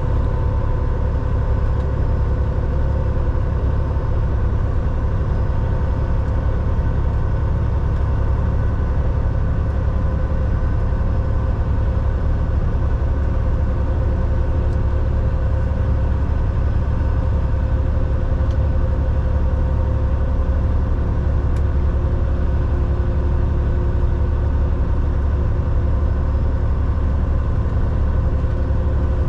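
Semi truck's diesel engine and road noise heard from inside the cab while cruising: a steady low rumble with a constant hum above it, unchanging throughout.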